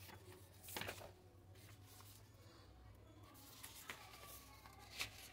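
Faint rustle of paperback textbook pages being turned by hand, with a louder rustle about a second in and a few short ticks near the end.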